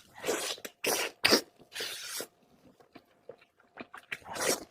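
Close-miked mouth sounds of someone eating pork: chewing and smacking in several short noisy bursts, with a quieter stretch in the middle.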